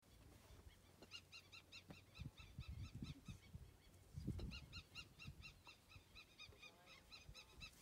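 A faint, rapid series of short, high, repeated animal calls, about five a second, in two runs of a few seconds each. A few low thumps and rumbles come near the middle, the loudest about four seconds in.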